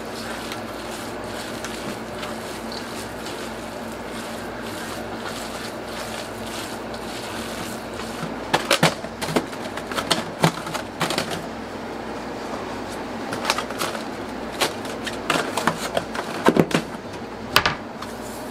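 Egg salad being worked by hand in a stainless steel bowl over a steady hum. About eight seconds in, a run of sharp clanks and knocks begins: a steel sheet tray and metal utensils are set down on a stainless steel counter.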